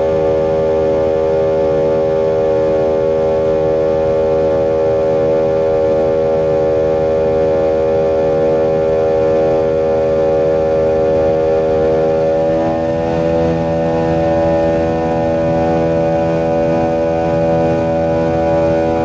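Buzzing drone of the McDonnell Douglas MD-90's tail-mounted IAE V2500 turbofans during the climb after takeoff, heard inside the rear cabin: a steady stack of tones. About two-thirds of the way through, the tone pattern shifts and settles into a new, slightly lower set of tones.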